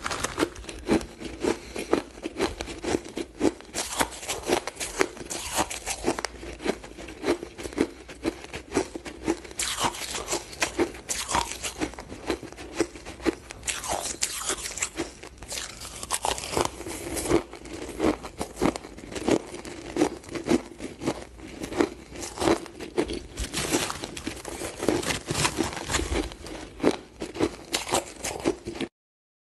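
Chewing and crunching of powdery shaved frozen ice: a rapid, unbroken run of crisp crunches that stops briefly just before the end.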